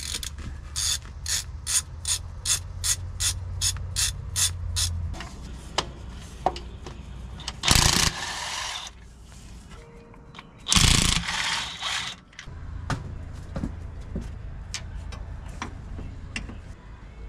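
A hand socket ratchet clicking steadily, about three to four clicks a second, as it turns out bell housing bolts. Further in come two bursts of about a second each from a cordless DeWalt power tool, the loudest sounds here, and then more scattered ratchet clicks.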